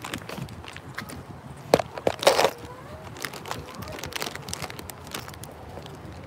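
Clicks and rustles from a handheld phone being moved while walking, with one short rustling burst a little after two seconds.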